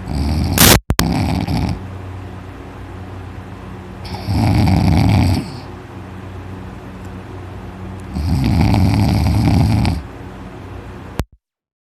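A sleeping man snoring very loudly: three long, rough snores about four seconds apart, with quieter breathing between them and a sharp click during the first. The sound cuts off near the end.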